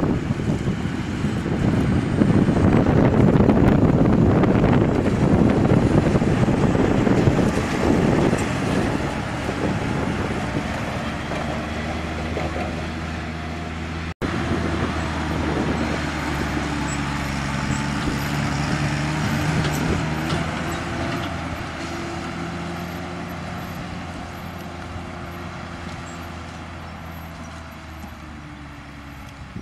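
Heavy diesel farm machinery working a corn harvest, such as forage harvesters and tractors: a loud, dense rumble for the first half, cut off abruptly about halfway. Then a steady engine note that slowly fades away.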